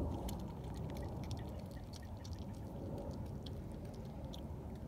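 Red fox chewing and tugging at a piece of raw chicken on grass: small irregular wet clicks over a steady low background rumble.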